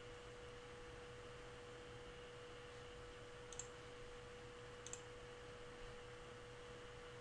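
Near silence with a faint steady hum tone, and two faint computer mouse clicks, about three and a half and five seconds in.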